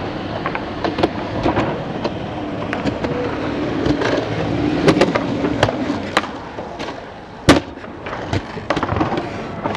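Skateboard wheels rolling on concrete with a steady rumble, broken by sharp clacks of the board's tail and deck hitting the ground on pops and landings. The loudest clack comes about three quarters of the way through.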